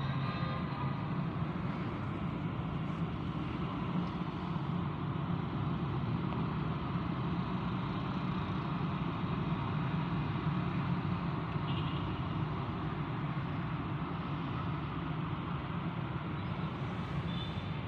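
Steady rumble of motor vehicle traffic, even throughout with no sudden sounds.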